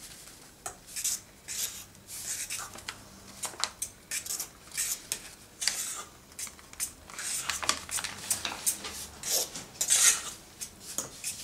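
Paper flour bag crackling as flour is poured into a measuring mug, with a metal spoon scraping and knocking in a steel pot as flour is worked into banana batter. The sounds come as short, irregular scrapes and rustles, the loudest near the end.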